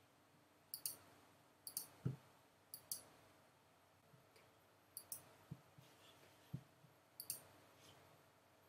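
Computer mouse clicks, each a quick press-and-release pair, five times at uneven gaps of one to two seconds, with a few soft low thuds in between.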